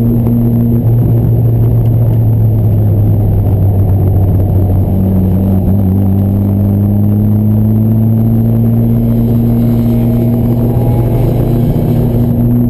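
Fiat 124 Spider's twin-cam four-cylinder engine, breathing through a Weber 34 ADF carburettor and Stebro exhaust, pulling steadily on the road over a dense low rumble of road noise. Its pitch climbs slowly through the second half as the car gathers speed.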